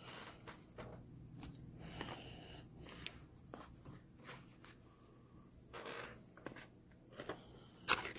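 Pokémon trading cards being handled and moved among stacks on a table: faint, scattered light clicks and brief rustles of card stock.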